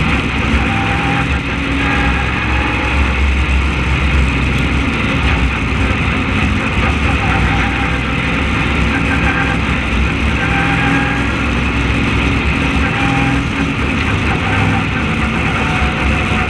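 Open-wheel race car's carbureted engine running steadily at race speed, heard from a camera mounted on the car itself, with wind noise over it.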